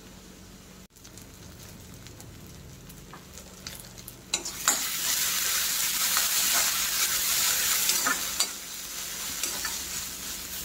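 Onion, tomato and curry leaves frying in oil in a kadai, stirred with a steel ladle: a faint sizzle that grows much louder about four and a half seconds in as the mixture is stirred and scraped around the pan, then eases off near the end.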